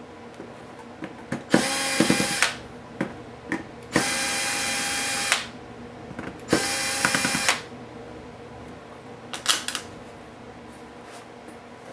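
Small electric screwdriver running in three short bursts of about one to one and a half seconds each, backing out the laptop case screws, with light clicks and knocks of handling between and after.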